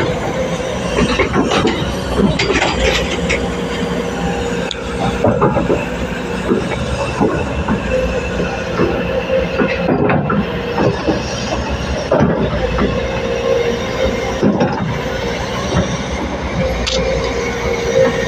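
L&T excavator working: a steady mechanical drone, with irregular metallic clanks and squealing metal-on-metal throughout.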